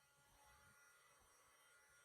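Near silence: faint room tone with a low, even hiss.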